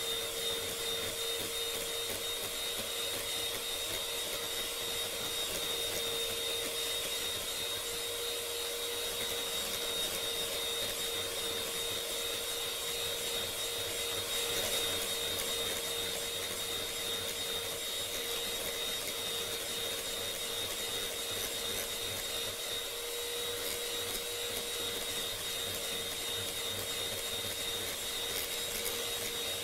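Electric hand mixer running steadily at constant speed with a steady whine, its beaters whipping eggs and sugar in a glass bowl until the mixture turns pale and foamy.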